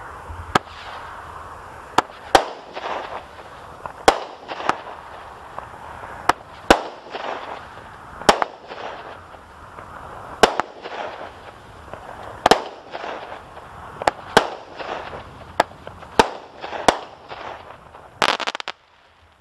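Consumer firework cake, the 'Executioner' 9-shot cake that shoots flaming balls, firing its shots in sequence: sharp bangs every one to two seconds over a continuous crackling hiss. A brief louder hiss comes near the end, then it cuts off suddenly.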